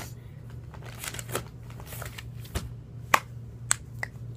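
Fidgeting fingers making a series of sharp clicks and snaps, sparse at first and then about every half second, the loudest just after three seconds in. A low steady hum runs underneath.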